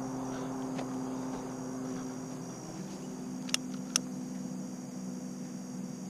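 Two sharp clicks about half a second apart, midway through: a handheld lighter being struck against cardboard at the base of a brush pile. Under them, a steady low hum and a steady high insect drone.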